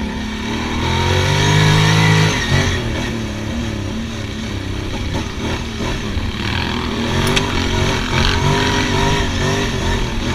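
ATV engine pulling away and riding along a dirt trail. Its revs climb about a second in and drop back after two seconds, then rise and fall again and again with the throttle.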